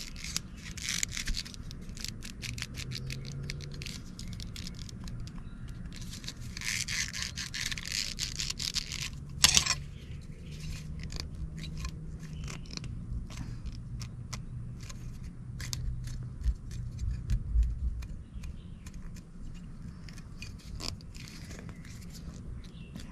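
Loose stacked-leather washers on the handle of a United Cutlery Ka-Bar copy scraping and clicking as they are twisted by hand; with the glued-on pommel gone, nothing holds the stack tight. Longer scraping near the start and again around eight seconds in, with one sharp click about nine and a half seconds in.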